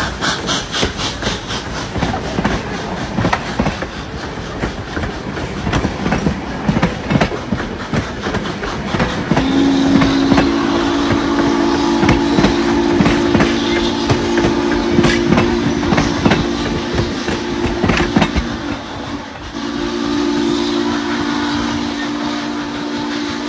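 Passenger coaches rolling past close by, their wheels clicking over the rail joints. Less than halfway in, a steam locomotive's chime whistle starts a long, low blast, breaks off for a moment, then sounds again.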